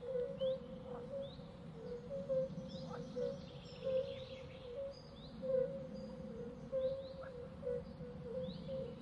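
Nature ambience: small birds chirping repeatedly, short calls that drop in pitch, over a steady background drone.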